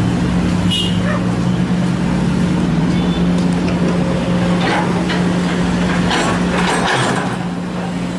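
Heavy diesel engine running steadily at a constant pitch, with a few short clatters and scrapes during soil loading.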